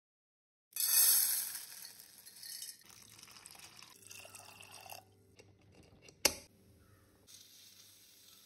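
Water poured from a glass jug into a steel pressure cooker of chana dal, splashing loudly at first and then running more steadily. A single sharp click comes about six seconds in.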